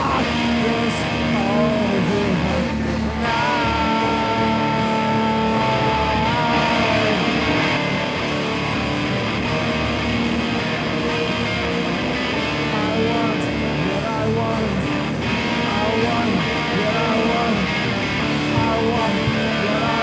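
Live rock band playing an instrumental passage led by electric guitar. A single high guitar note is held for about three seconds a few seconds in.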